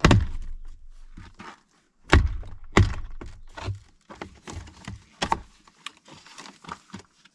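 Hand work on a pickup truck's door: a run of sharp knocks, cracks and clicks as door parts are taken off, the loudest at the start and about two, three and five seconds in.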